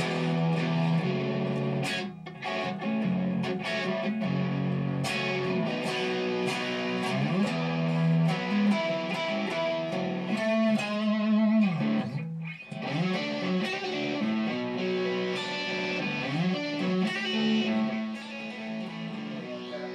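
Electric guitar played through an amp: sustained notes and chords with bends and slides, and a brief break about twelve seconds in.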